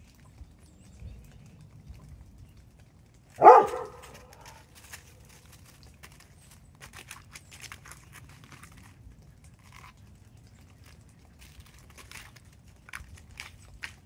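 Woodpecker pecking at a tree branch: faint, irregular taps, with a few clusters near the middle and toward the end. One loud, short animal cry cuts in about three and a half seconds in.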